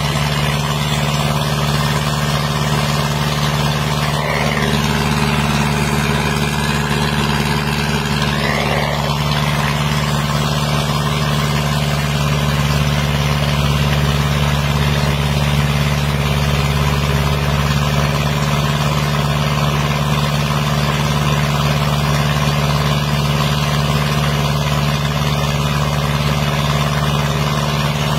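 The drive engine of a 4-inch centrifugal sand dredging pump runs at a steady speed with a constant hum. Sand-and-water slurry gushes from the discharge pipe and splashes onto the sand below.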